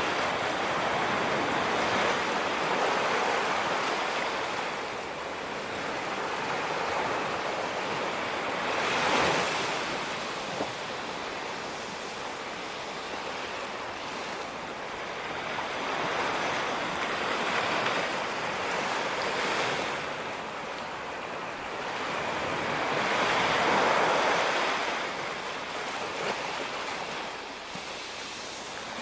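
Ocean waves washing onto a beach: a continuous rush of surf that swells and falls back, with two bigger breaks, one about nine seconds in and one about three-quarters of the way through.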